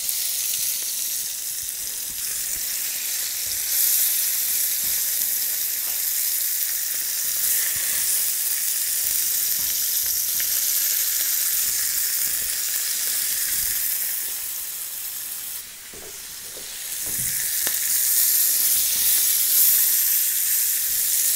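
Pancetta-wrapped monkfish sizzling in oil in a frying pan over gentle, reduced heat: a steady frying hiss. It drops away briefly about sixteen seconds in, then comes back.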